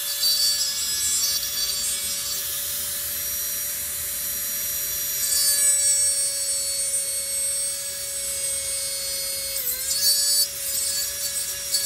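Micromotor carving handpiece running with a steady high whine, its burr grinding into wood to enlarge a hole to fit a wire leg. The grinding gets louder about midway and again near the end, where the motor's pitch dips briefly under load.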